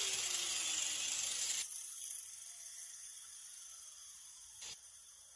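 Handheld sander on a fiberglass fender spinning down: its whine falls in pitch over a hiss that cuts off about a second and a half in. Then quiet, with a faint click near the end.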